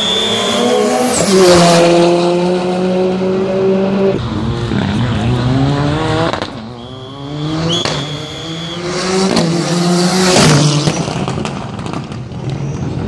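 Two rally cars pass close one after the other at full throttle, about a second and a half in and again about ten seconds in. Each engine revs up and drops back in steps through the gear changes.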